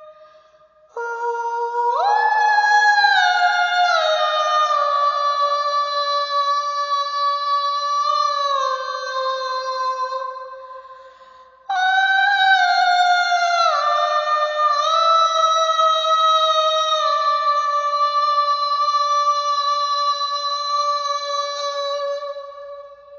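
Female soprano voice singing unaccompanied: two long phrases of sustained high notes with slides between pitches, breaking off briefly at about the middle.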